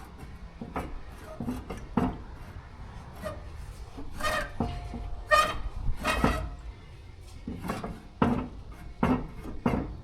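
About a dozen irregular metal knocks and clanks from work on a narrowboat's steel tiller stock as it is freed from the rudder. The three loudest, in the middle, ring briefly.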